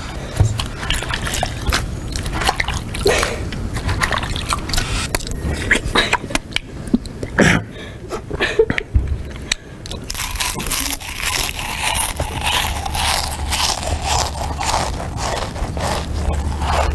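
Deliberately loud watermelon eating: wet biting, slurping and crunching of the flesh in quick, irregular smacks. About ten seconds in, the background changes to a steady low hum, and loud chewing goes on over it.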